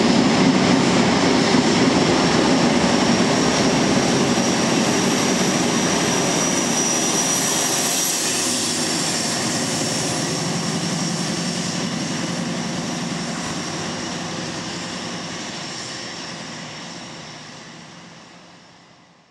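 Paxman Valenta V12 diesel engines of an HST (InterCity 125) power car working hard as the train departs, a high turbocharger scream over the engine drone. The whistle is strongest about eight seconds in as the rear power car passes, then the sound fades steadily as the train draws away.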